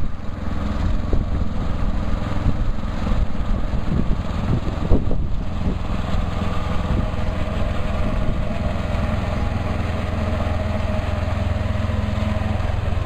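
Small engine of a ride-on miniature road train running steadily as it drives along pulling a passenger carriage.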